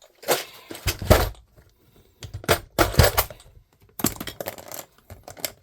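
Small metal parts clinking and rattling as they are handled, in a string of sharp clicks and short clatters with brief pauses between them.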